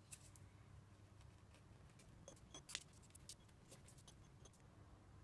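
Near silence: a faint low hum of room tone with a few faint small clicks and ticks, the clearest a little past the middle.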